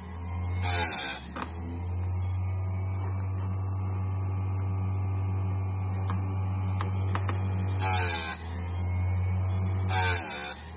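Electric bench-top chainsaw chain grinder running with a steady motor hum. Three brief grinding passes, about one, eight and ten seconds in, as the wheel is brought down onto a cutter tooth. A few light clicks come in between.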